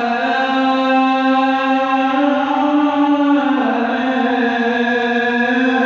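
A male muezzin's voice chanting the adhan, holding one long, ornamented note through the phrase "hayya 'ala l-falah"; the pitch steps down a little about halfway through.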